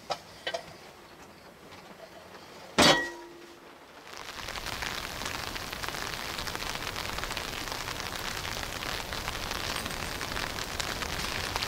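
Freezing rain falling steadily, a dense even patter of fine ticks, which starts suddenly about four seconds in. Before it there is quiet room tone broken by one sharp knock with a brief ring about three seconds in.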